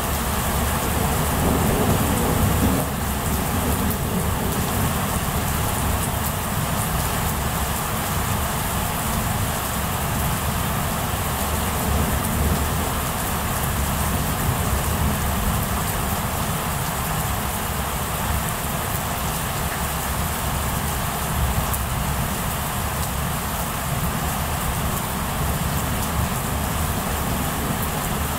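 Heavy rain falling steadily in a thunderstorm. A low rumble sits under it for the first few seconds and stops abruptly about three seconds in.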